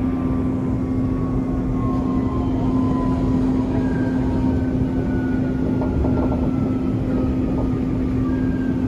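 Inside a moving Dubai Metro train: the steady hum and rumble of the train running, with faint motor whines slowly falling in pitch as it slows for a station.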